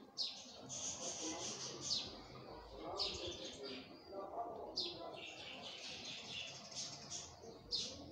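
A metal spoon stirring and scraping through thick masala in a metal pot. It makes five scraping strokes with uneven gaps of one to three seconds.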